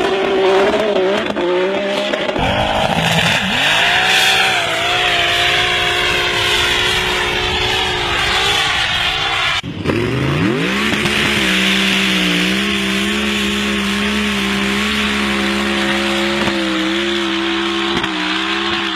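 Heavily modified 1200 hp Jeep engine running hard at high revs, its pitch swinging and falling over the first half. After a sudden break about ten seconds in, it revs up quickly and holds steady at high revs.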